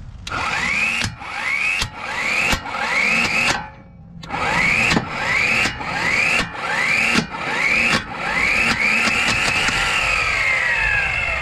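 Mplus 12-volt corded impact wrench loosening a car's strut bolt nut in about eleven short trigger bursts, each spinning up in pitch, with a short pause partway. Near the end comes one longer run whose pitch rises and then falls as the nut spins off the bolt.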